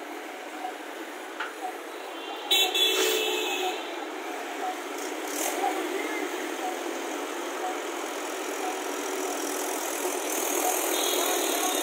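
Mahindra tractor's diesel engine running under heavy load as it pulls a trolley piled high with logs. A vehicle horn honks briefly about two and a half seconds in.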